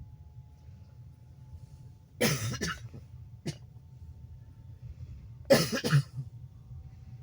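A person coughs twice, about two seconds in and again near five and a half seconds, the second cough the louder, over the low steady rumble of the passenger train.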